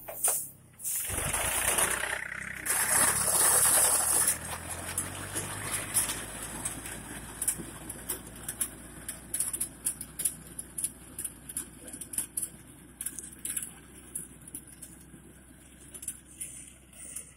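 Tractor engine running as its mounted reaper cuts through dry rice stalks. It is loud for the first four seconds, then fades as the machine moves away, leaving frequent sharp clicks and crackles close by.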